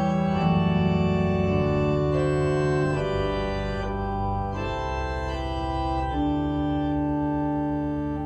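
Organ playing slow, sustained chords that change every second or so over a held bass.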